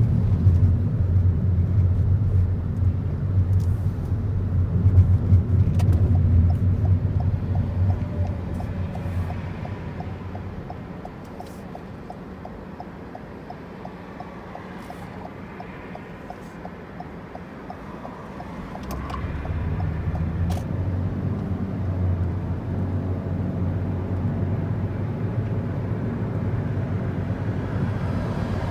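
Car cabin noise while driving: a steady low engine and tyre rumble that dies down as the car slows and stops at an intersection, where a turn-signal indicator ticks evenly. About 19 s in, the rumble rises again as the car pulls away and cruises.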